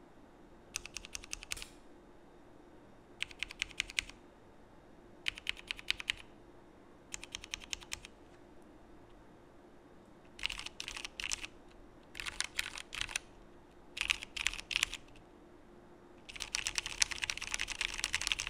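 Typing on a Frog by Geonworks mechanical keyboard with an aluminium plate and vintage Cherry MX Black linear switches (lubed stems): eight short runs of keystrokes with brief pauses between them, the last run the longest and fullest.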